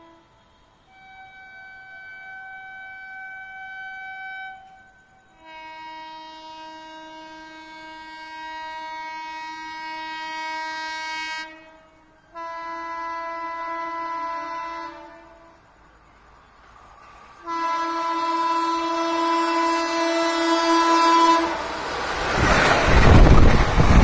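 Twin-tone horn of a WAP-4 electric locomotive sounding four long blasts, growing louder as the train approaches. Near the end the horn gives way to the loud rush and rumble of the locomotive and coaches passing close by.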